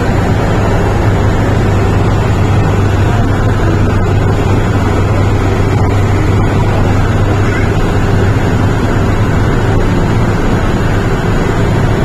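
Steady low hum and rumble inside an MTR Tsuen Wan line M-Train car, a Metro-Cammell-built electric multiple unit, with no changes in level.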